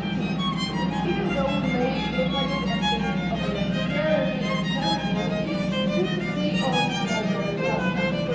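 Music with a violin melody.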